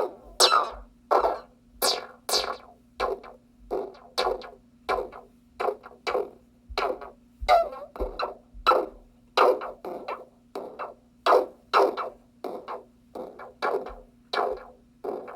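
Small electronic noise-box synthesizer playing a looping sequence of short, quickly decaying blips and hits, about two a second, each a little different in pitch and tone, over a steady low drone.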